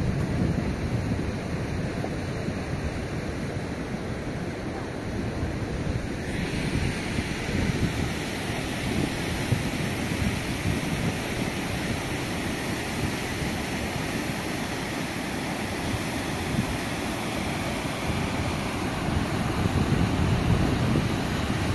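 Muddy floodwater rushing down a rocky hillside gully, a steady watery rush that turns brighter and hissier about six seconds in. Wind buffets the microphone throughout.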